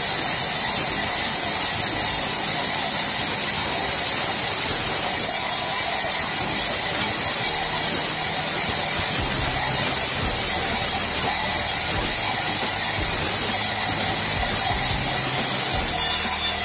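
Evolution sliding mitre saw cutting through a steel plate with its carbide-tipped blade: a loud, steady hissing grind that holds without a break.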